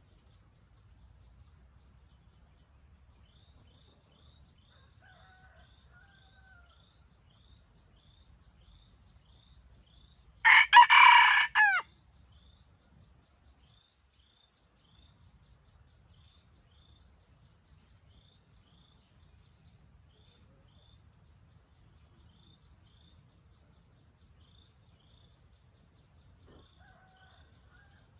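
Red junglefowl rooster crowing once, about ten seconds in: a loud, short crow broken into several parts. Faint insect chirping repeats a few times a second behind it.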